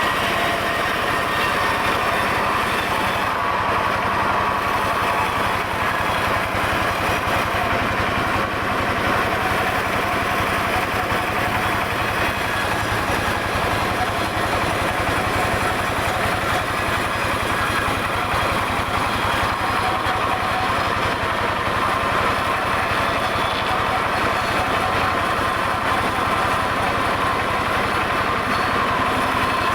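Sawmill saw running steadily under load as it cuts through a dense mahogany log, with an even, unbroken engine-like drone.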